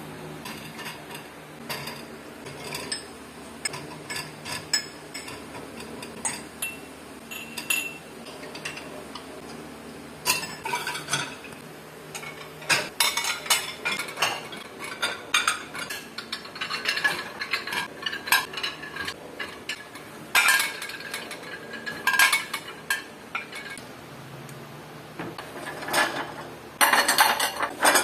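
Ceramic plates and bowls clinking and clattering as they are set into the wire racks of a dishwasher. The clatter comes in irregular clusters, loudest near the end.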